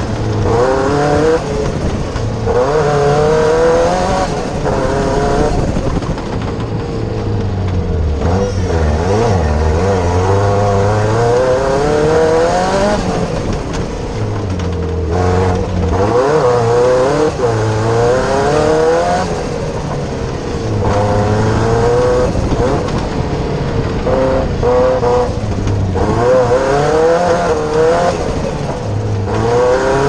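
Cosworth engine of a Fiesta Proto 4x4 off-road prototype under hard driving, heard from inside the cockpit, climbing in pitch through the revs again and again and dropping back sharply at each gear change or lift of the throttle.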